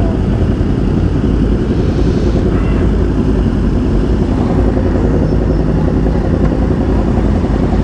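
Sport motorcycle engines running at low speed in a slow-moving group of bikes: a steady, loud, low drone with no sharp revs.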